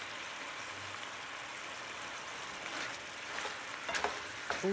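Chicken pieces sizzling steadily in their juices in a frying pan. In the second half a spatula scrapes and knocks against the pan a few times.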